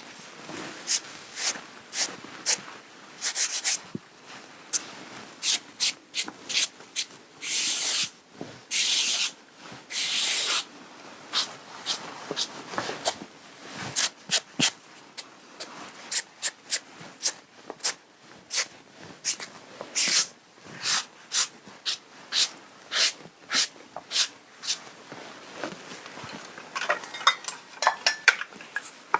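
Brush swept over a garment's fabric in many quick strokes to brush off lint, with a few longer strokes mixed in.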